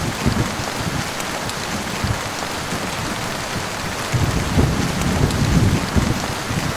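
Heavy rain falling steadily, with a low rumble of thunder swelling from about four seconds in.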